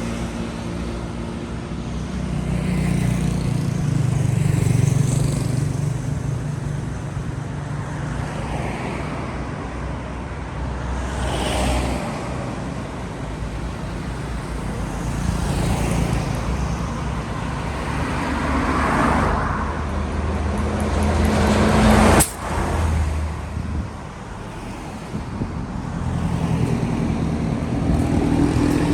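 Road traffic: a vehicle engine running with a steady low hum while cars pass by in several swells of tyre and engine noise. There is a sharp click and a sudden drop in level about three-quarters of the way through.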